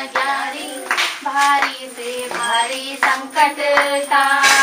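Women and children singing a Hindu devotional song together, with scattered hand claps.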